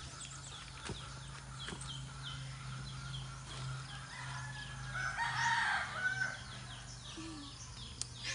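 A rooster crows once, about five seconds in, over steady high chirping from small birds.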